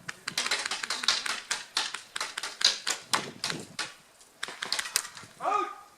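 Airsoft fire: a rapid, irregular run of sharp shots and snaps lasting about five seconds. Near the end comes a short pitched call that rises and falls.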